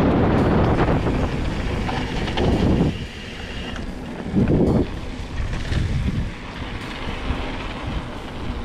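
Wind buffeting the camera microphone over the rumble of hardtail mountain bike tyres on a dirt track while riding. The noise is loudest for about the first three seconds, then eases, with one short loud gust a little over four seconds in.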